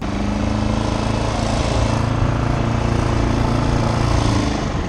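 Small tiller outboard motor running steadily, pushing the skiff along, with water rushing along the hull. It starts abruptly and eases slightly near the end.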